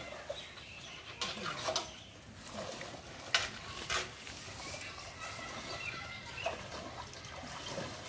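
Chickens clucking now and then, with two sharp knocks about half a second apart near the middle.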